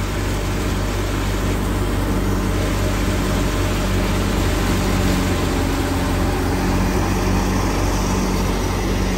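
Tractor-driven wheat thresher running steadily under load while threshing: a continuous low engine drone mixed with the churning of the threshing drum.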